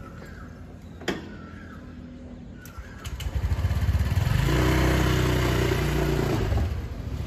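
Motor scooter's small engine idling low, then revving up about three seconds in and running loud and steady as the scooter pulls away, easing off near the end. A sharp click about a second in.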